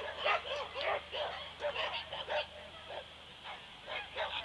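Beagle barking repeatedly in quick short barks, about three a second, with a brief lull about three seconds in before the barking picks up again.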